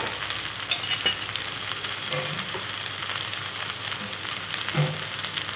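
Masala macaroni sizzling steadily in a hot metal kadhai, with a few light clicks about a second in.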